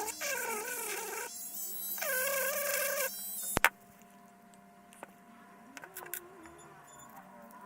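Rotary tool spinning a felt polishing pad against a stainless steel bracelet clasp with diamond paste, a high whine whose pitch sags and recovers as the pad is pressed on. A little past three seconds it stops with a sharp click, and only faint small clicks of handling follow.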